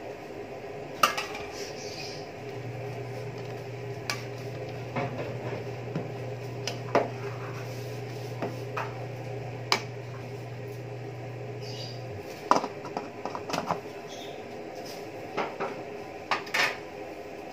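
Metal ladle stirring in an aluminium stockpot of stew, knocking and scraping against the pot in a string of sharp clinks, then the aluminium lid clattering as it is set on the pot.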